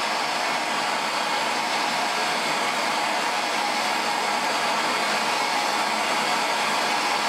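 Handheld gas blowtorch flame burning with a steady hiss, heating the aluminium around a sheared steel bolt to help free it.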